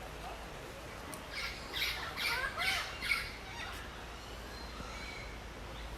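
Bird squawking: a quick run of about four harsh calls, each rising and falling in pitch, in the middle of the stretch over a steady outdoor background.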